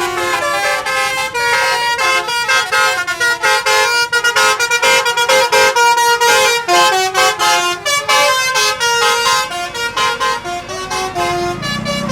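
Tour bus's basuri 'telolet' multi-tone horn playing a fast melody of short notes in quick succession.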